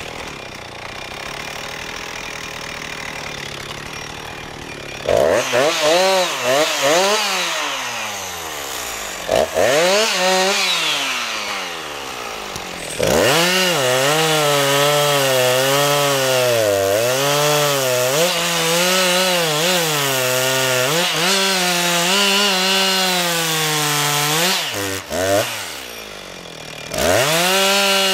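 Husqvarna 357 XP two-stroke chainsaw idling, then revving up sharply about five seconds in and again near ten seconds, falling back to idle in between. From about thirteen seconds it runs at high revs cutting through a log, its pitch wavering as the chain bites. It drops back toward idle for a moment and revs up again near the end.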